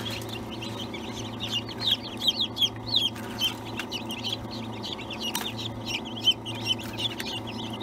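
Newly hatched chicks peeping nonstop, many short high chirps overlapping, over a steady low hum. A couple of light clicks come through about a third and two thirds of the way in.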